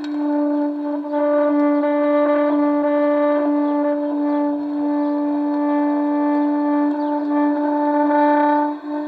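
A single steady horn-like drone with a stack of overtones, held at one pitch throughout, with faint ticks over it.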